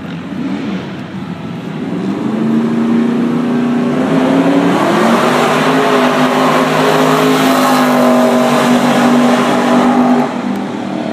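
Race car engine revving hard: it builds about two seconds in, climbs in pitch, holds at high revs, and cuts off sharply about ten seconds in.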